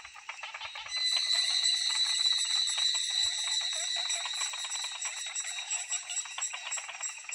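Chorus of calling insects: a steady, high-pitched buzzing whine that swells about a second in, over a dense layer of rapid clicks and chirps.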